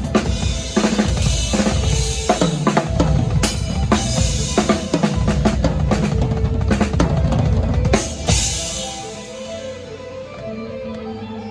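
Live drum kit played at a sound check: fast, busy strokes on bass drum, snare and cymbals. About eight seconds in the playing stops and the last hits ring out and fade.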